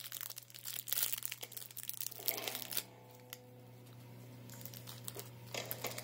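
Clear plastic twist wrapper of a soft peppermint candy crinkling as it is pulled open by hand, dense crackling for about the first three seconds, then quieter, with a short crinkle again near the end.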